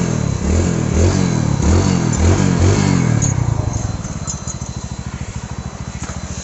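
Hero Splendor motorcycle's single-cylinder four-stroke engine, blipped repeatedly, about twice a second, for the first three seconds, then dropping back to a steady, even idle. It is running on freshly fitted piston rings, and the mechanic says the engine sound is now right.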